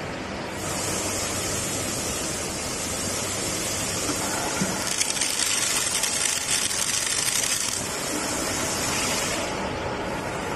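BAS-055MM hydraulic band saw blade butt welding machine welding a blade: a steady high hiss starts about half a second in, crackles and spits unevenly as sparks fly off the joint in the middle, and stops about a second before the end.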